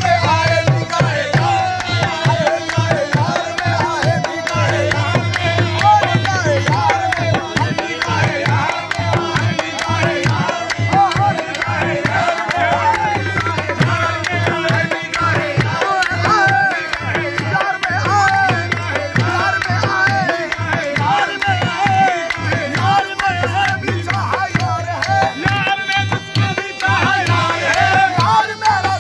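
Qawwali music with tabla drumming and a melody line that bends up and down, running on without a break.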